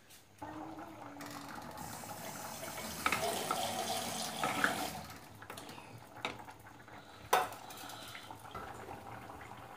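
Curry simmering in a pot while a spatula stirs it, scraping and knocking against the pot several times. The loudest is one sharp knock about seven seconds in.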